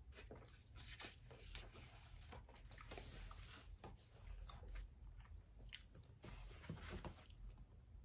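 Faint rustling and soft handling noises of a paper book and a fabric blanket as the book is moved and laid down, with scattered light clicks and a soft thump near the end.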